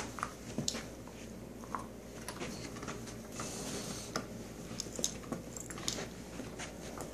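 A dog moving about on carpet and picking up a plush toy: scattered light clicks and soft rustling.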